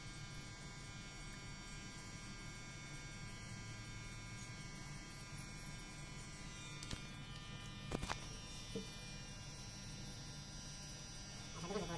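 Steady electrical buzz, with two short clicks about seven and eight seconds in.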